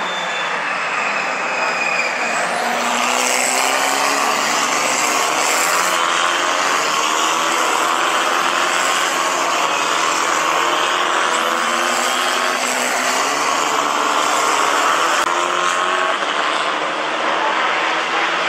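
Several Formula 4 single-seater race car engines running at racing speed and overlapping, their pitch rising slowly as the cars accelerate.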